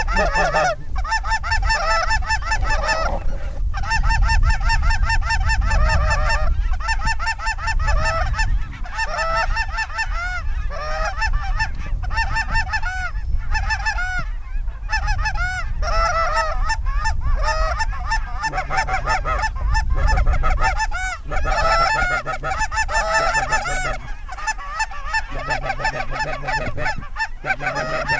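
A flock of geese honking continuously, many calls overlapping, over a low rumble.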